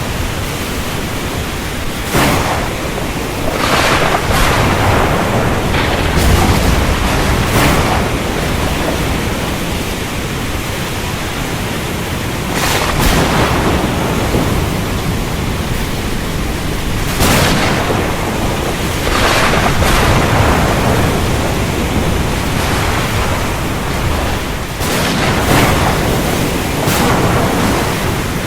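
Heavy rain as a steady hiss, with sharp thunder cracks a dozen or so times and a low rumble underneath.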